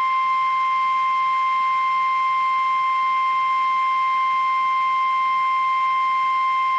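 NOAA Weather Radio 1050 Hz warning alarm tone: a single loud, steady, unwavering tone, the signal that a warning message is about to be broadcast.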